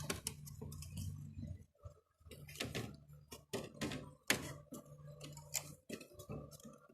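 Plastic clicks and knocks of a window-type air conditioner's front cover being handled and fitted back into place: a dozen or so sharp clicks at irregular intervals, with a low hum that comes and goes underneath.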